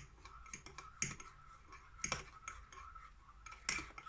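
Scattered light clicks and taps of a cup and kitchen utensils being handled, a few louder ones spaced about a second apart, over a faint steady hum.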